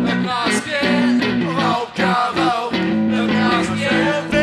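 A rock and roll song played by a band with guitar, a voice singing over it.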